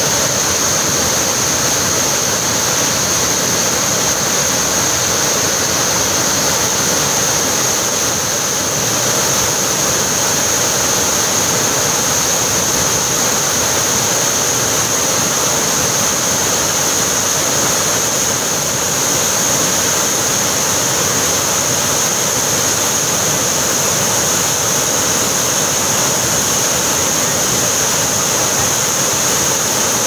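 Waterfall pouring down a rock face and splashing into a pool: a steady, even rush of water.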